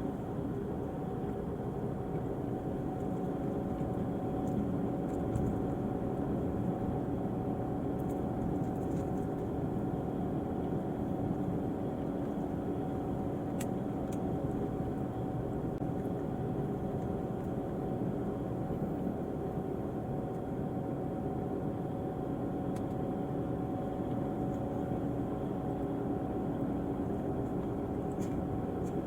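Diesel engine of an Irizar i6s coach on a Volvo chassis, running at a steady, even speed with a constant hum.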